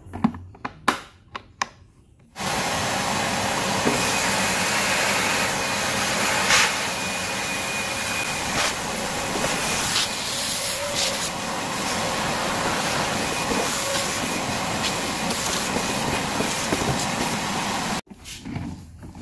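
Fisch MB10LT 600-watt wet-and-dry vacuum cleaner running with a steady rushing hiss, after a few sharp clicks; it cuts off suddenly near the end.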